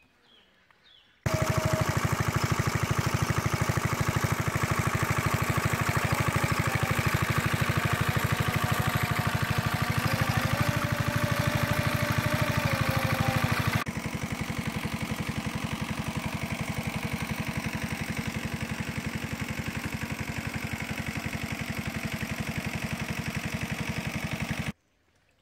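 Small single-cylinder engine of a pond-draining water pump set running steadily with an even, fast firing rhythm. It starts suddenly about a second in, gets a little quieter about halfway, and cuts off suddenly near the end.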